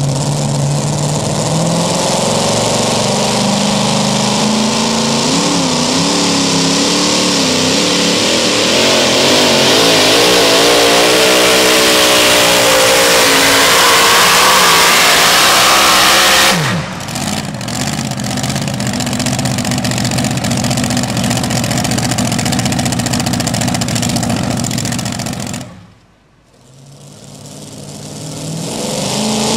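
Supercharged engine of a super modified two-wheel-drive pulling truck revving hard under full load as it drags the weight-transfer sled, its pitch climbing and wavering. About 16 s in it cuts off suddenly and winds down, leaving loud steady noise; near the end another blown pulling-truck engine runs at a steady idle.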